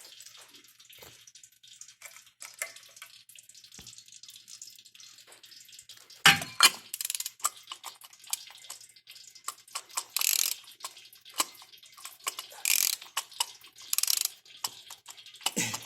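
A tool clicking, knocking and scraping on a stuck, punctured oil filter, with oil dripping and spattering from the hole. A loud knock comes about six seconds in, followed later by several short hissing spatters.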